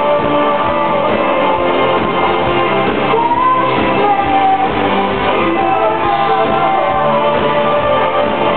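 Live rock band playing loud, with electric guitar, a steady drum beat and a sung vocal, heard from within the crowd.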